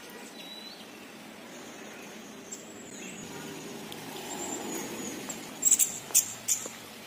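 Quiet outdoor background with a few faint bird chirps. Near the end comes a quick cluster of four sharp clicks.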